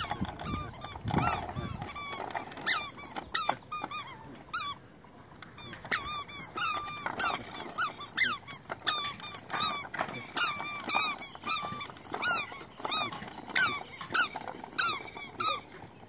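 Wooden push-along baby walker squeaking as it rolls, its wooden wheels and axles giving a short squeak about twice a second.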